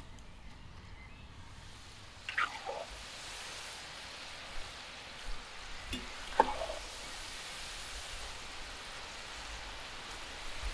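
Chicken pieces deep-frying in a pot of hot oil, a steady bubbling sizzle. A metal slotted skimmer stirs them, giving a few brief scrapes and clinks against the pot, the sharpest a little past the middle.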